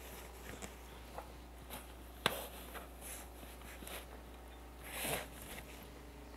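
Faint handling sounds of a camera and lens being put into an open padded camera bag: a sharp knock about two seconds in and a brief rustle near five seconds.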